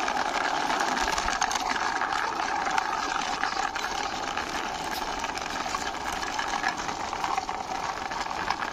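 Plastic toy car pushed by hand along a rough stone wall top, its wheels rolling with a steady whirring rattle.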